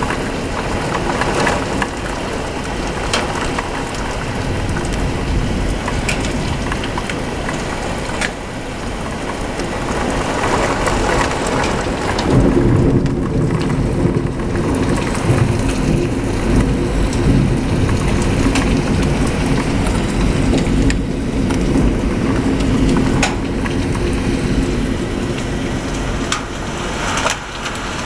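Thunderstorm: heavy rain falling steadily, with scattered sharp drop hits. Partway through, a long, deep rumble of thunder sets in and carries on for most of the rest.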